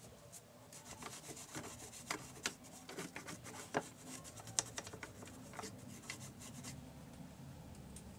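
Hands working on a Singer portable sewing machine: irregular rubbing and scraping with scattered sharp clicks, busiest through the middle few seconds, and no motor running.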